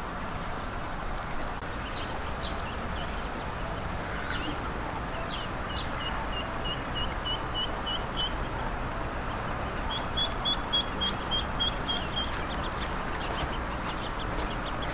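Ducklings peeping: two runs of about eight short, evenly spaced high peeps, the second run slightly higher, with a few scattered single calls, over a steady background noise.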